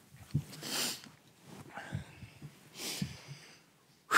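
A man sniffing and breathing hard, choked up with emotion: two noisy breaths, about a second in and again near three seconds in, with a few soft knocks between them.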